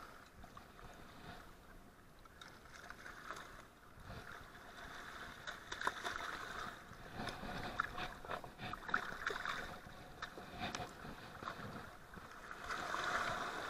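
River water lapping against a rocky bank, with a hooked fish thrashing and splashing at the surface by the rocks, the splashes coming thickest from about five seconds in.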